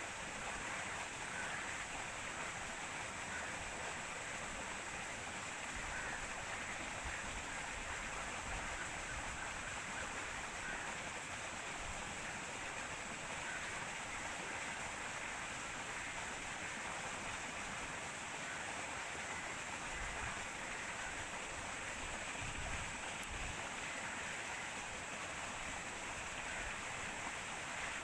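Steady rushing of flowing water, a constant hiss, with a few brief low rumbles of wind on the microphone.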